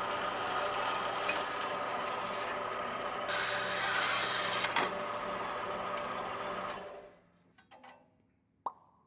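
Machine tool cutting a 4140 steel blank: a steady running noise with a constant whine. It stops abruptly about seven seconds in, leaving a few faint clicks and one sharp knock near the end.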